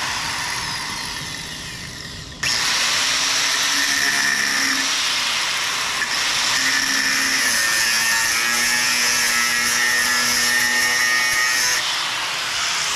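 Electric cutoff wheel (angle grinder) running free, then biting into metal about two and a half seconds in with a louder, harsher cutting sound whose pitch wavers under load, and easing off the metal about a second before the end.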